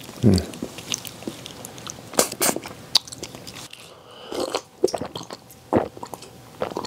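Close-up eating sounds of soy-marinated raw crab (gejang): a short low falling 'mm' at the start, then wet chewing with sharp crunches and mouth clicks, and swallowing while drinking from a glass in the second half.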